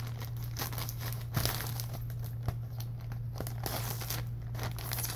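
Plastic poly mailer bag crinkling and tearing as it is pulled open by hand, a dense run of irregular crackles, with a steady low hum underneath.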